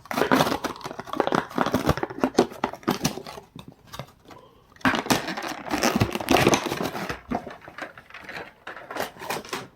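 Cardboard toy box and plastic packaging being handled and opened, with dense crinkling and clicking in two stretches and a short lull between them.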